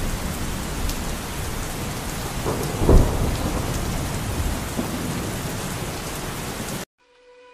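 Steady hiss of heavy rain, with one short low thump about three seconds in; it cuts off abruptly near the end.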